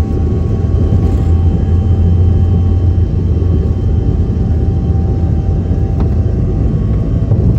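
Cabin noise of a Bombardier CRJ200 regional jet during takeoff: its two rear-mounted turbofans and the airflow make a loud, steady low rumble, with faint steady whining tones above it.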